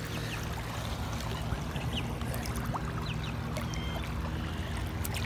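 Steady water noise at the lake's edge over a low hum, with a small splash about a second and a half in as a released small largemouth bass swims off. A few short high chirps come and go.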